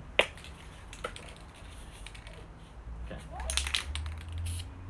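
Sharp clicks and knocks of hard objects being handled: one loud click just after the start, a softer one about a second in, and a quick clatter of clicks near the end.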